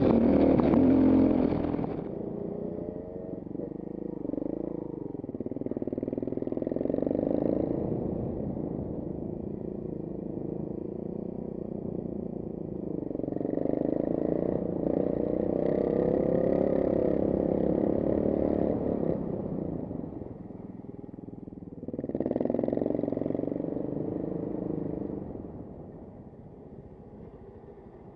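Enduro motorcycle engine heard on board, its pitch rising and falling in surges as the throttle is opened and closed. It is louder and rougher for the first two seconds and fades near the end.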